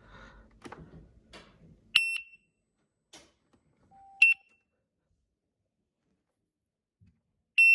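Begode EX electric unicycle's buzzer giving short high beeps as the wheel is switched on: three beeps a couple of seconds apart, the second just after a brief lower note. A few light handling clicks come before the first beep.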